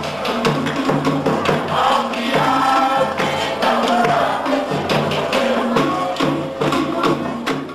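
Pukapukan group song: many voices singing in chorus over fast, steady drumming, the level beginning to drop near the end.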